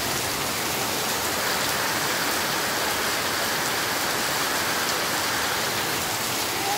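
Heavy rain falling steadily on a paved yard and trees: a constant, even downpour.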